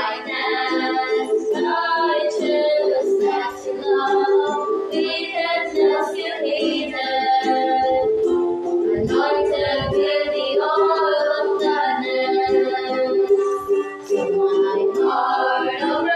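Three girls singing a hymn together, accompanied by a strummed ukulele.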